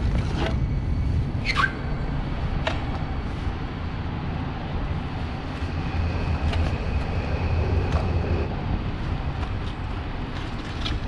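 Steady low rumble of street traffic. In the first three seconds there are a few sharp knocks as the electric unicycle tips over onto the pavement and is handled.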